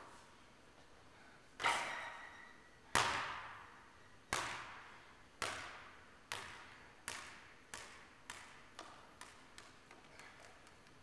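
A basketball bouncing loose on a gym floor, about a dozen bounces that come quicker and weaker as it settles, each echoing in the large hall.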